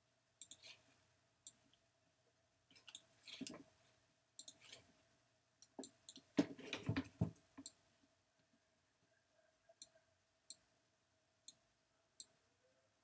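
Computer mouse clicking: a dozen or so scattered, separate clicks, with a quick, louder run of clicks and rubbing about six to seven seconds in, as tools are picked and changed in drawing software.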